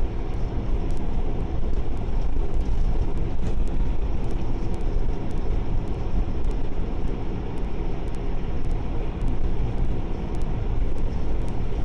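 Car driving at steady speed on a snowy road, heard inside the cabin: an even rumble of engine and tyre noise with no changes in pitch or level.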